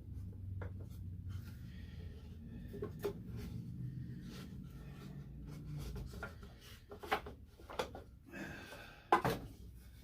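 Wooden boards being handled and positioned on a workbench: scattered light knocks, clicks and rubbing, with a few louder knocks near the end.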